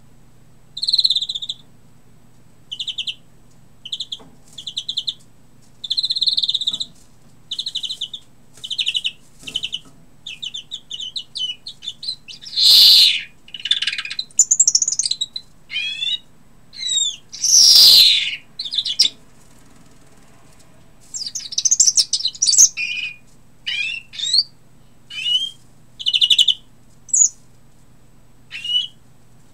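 European greenfinch singing: a long string of short trills and twittering phrases, with gaps between them, broken twice midway by a long, loud drawn-out note that falls in pitch.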